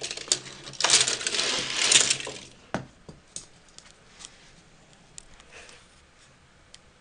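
A heap of die-cast toy cars swept together by hand, clattering against one another in a loud jumble for about two and a half seconds, then a few single clicks as stray cars knock and settle.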